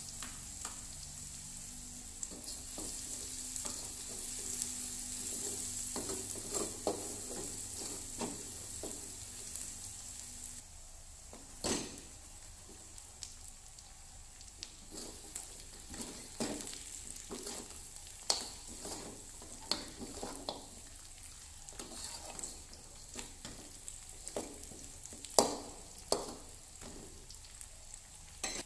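Minced garlic sizzling in hot oil in an aluminium wok, with a spatula clicking and scraping against the pan as it is stirred. About ten seconds in the sizzle drops away, and the rest is mostly scattered spatula knocks and scrapes, a few of them sharp and loud, as pieces of fried chicken are stirred through the garlic.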